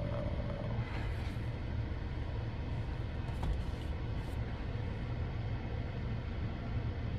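Steady low rumble of a car, heard inside its cabin, with a couple of faint clicks.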